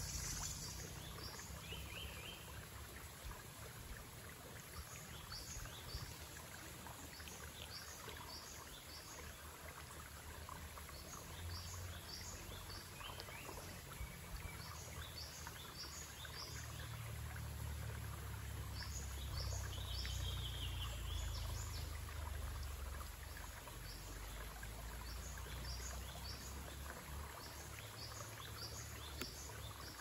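Steady rushing of a small stream flowing over rocks, with short high bird chirps in quick twos and threes recurring throughout and a low rumble that swells for a few seconds around the middle.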